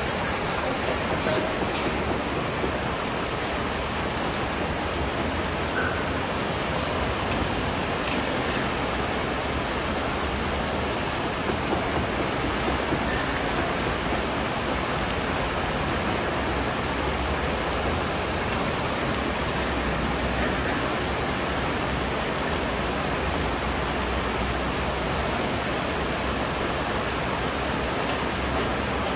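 Steady sizzling and bubbling from a giant kazan of plov (carrots, meat and chickpeas cooking in oil), a continuous rain-like hiss with a low rumble underneath.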